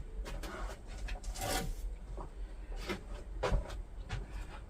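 Scattered light knocks, clicks and brief scraping of wood and tools being handled on a workbench, over a low steady hum.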